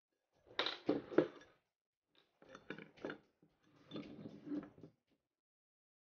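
Clicks and knocks of the opened JB4 tuning box's case lid being handled on a tabletop, in three short bouts about half a second, two and a half and four seconds in.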